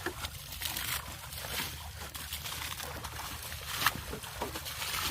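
Water sloshing and splashing in irregular strokes, with one sharp click about four seconds in.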